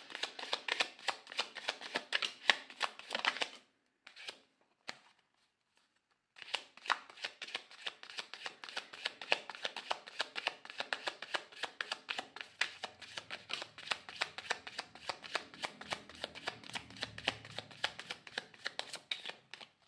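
A deck of tarot cards being shuffled by hand, the card edges clicking rapidly. The shuffling breaks off for about two and a half seconds, with a couple of single clicks, a few seconds in, then resumes and runs on until near the end.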